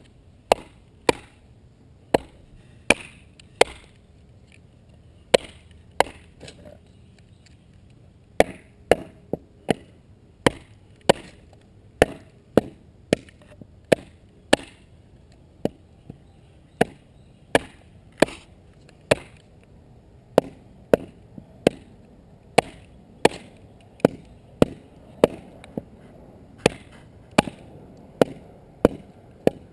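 Bushcraft knife being batoned through wood: a wooden baton striking the spine of the knife, giving sharp, separate knocks about one or two a second as the blade is driven down into the wood.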